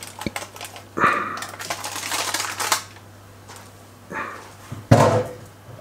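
Baking parchment crinkling and rustling as a hot galette is slid out of its round baking dish, then a single loud clunk about five seconds in as the dish is moved and knocks on the glass-ceramic hob.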